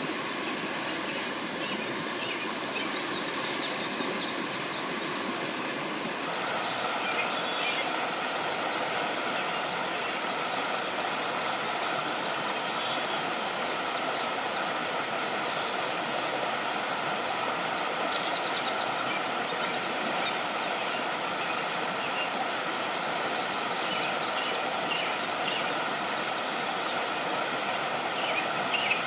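Steady rushing of a stream's flowing water, with short high bird chirps scattered through it.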